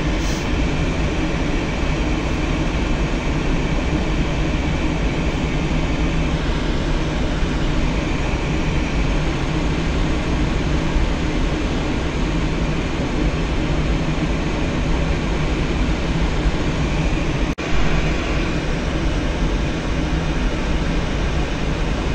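Steady rush of air over a glider's canopy heard inside the cockpit in flight, with a low hum beneath it. The sound cuts out for an instant about three-quarters of the way through.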